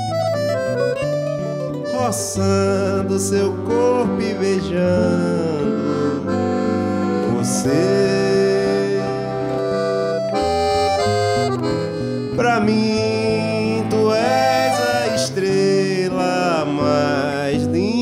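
A piano accordion plays the melody in a steady, continuous line. A mandolin and an acoustic guitar accompany it.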